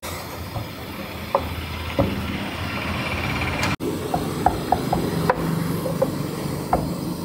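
Light taps and knocks on a wooden board as small balls of puri dough are cut and pressed flat by hand, over a steady low hum of background noise.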